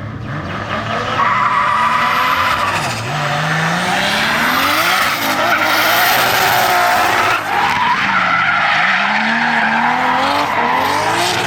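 Toyota 86 (ZN6) drift car sliding with its tyres screeching continuously, the engine revving up and down several times as the throttle is worked through the slide.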